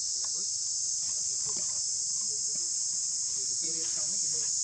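Steady high-pitched insect chorus, an even unbroken drone of cicadas or crickets in forest. Faint, brief lower sounds come and go beneath it.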